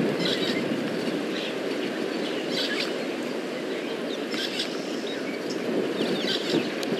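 Outdoor bush ambience: a steady low rushing noise, with small birds chirping in short clusters every second or two.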